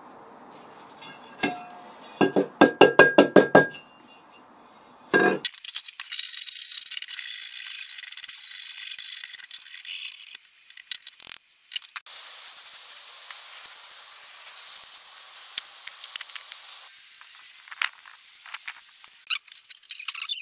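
A quick run of about eight ringing metallic clinks on the cast-iron body of an old Stanley No.5 hand plane. Then a long stretch of steady rasping as rust is scraped off the casting with a steel tool, and scattered clicks near the end.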